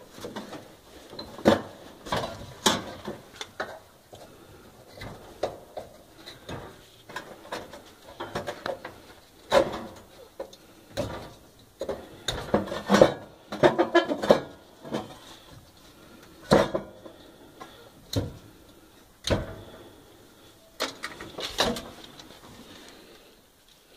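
A pocket knife scraping and nicking at the insulation of the oven igniter's wires, mixed with irregular clicks, knocks and rattles of metal as gloved hands work inside the oven compartment.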